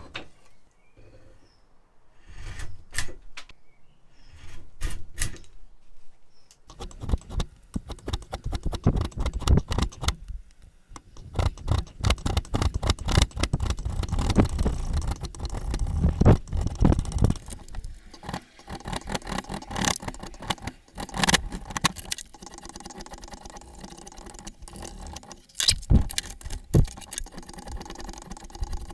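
A hand tool shaving a wooden handle blank clamped in a vise. First a few sharp clicks and knocks, then from about seven seconds in, many fast scraping strokes across the wood.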